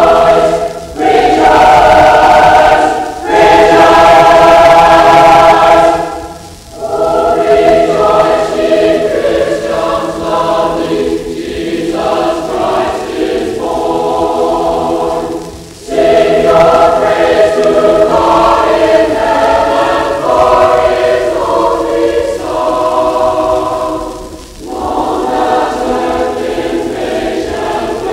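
High school choir singing in full chords, in a 1958 recording: three long held chords open the passage, then flowing phrases with brief breaths between them.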